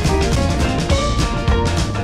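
Background music with a drum kit and bass playing a steady beat, with melodic notes over it.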